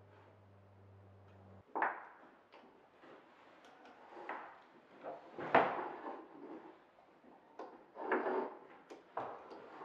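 A small wooden block shifted and scraped against the floor and the foot of a wooden bench leg in a handful of short scrapes, the loudest about five and a half seconds in.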